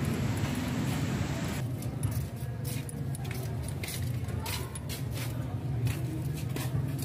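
Small metal clicks and jingles of a nut and lock washer being handled and fitted by hand onto the bolt of a motorcycle's gear-shift linkage, over a steady low hum.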